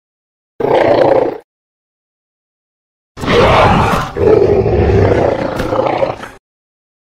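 Two Atrociraptor roar sound effects in the Jurassic World style: a short call of under a second, then after a silence a longer call of about three seconds with a brief break about a second into it.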